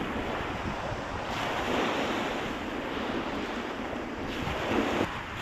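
Surf washing onto the beach, swelling louder a couple of times, with wind buffeting the microphone.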